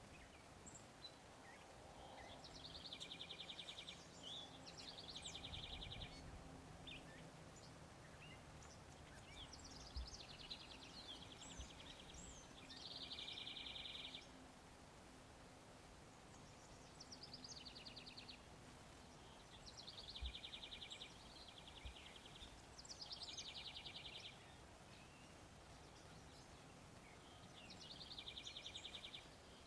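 Faint birdsong: a small bird's short, rapid trill, each about a second long, repeated every few seconds and sometimes in quick pairs, over a steady outdoor background hush.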